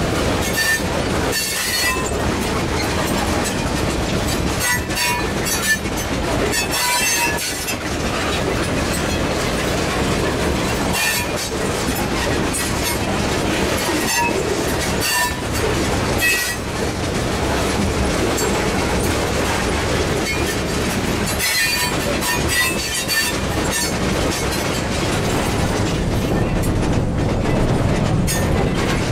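Freight train cars rolling past close by: steel wheels rumbling and clattering on the rails as tank cars and then container well cars go by. Short high-pitched wheel squeals come and go several times.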